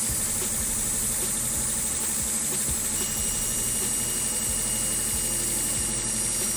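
A machine runs steadily with a low hum and a light regular knock about twice a second. A faint high whine joins about three seconds in.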